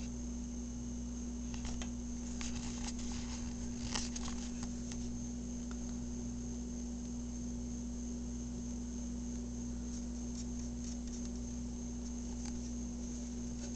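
Hamster nibbling and chewing food: faint quick clicks and crunches in clusters, about two to five seconds in and again around ten to twelve seconds, over a steady electrical hum.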